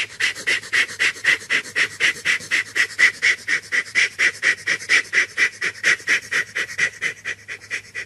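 Steam locomotive chuffing in a steady quick rhythm, about five or six sharp puffs a second, as the engine runs along.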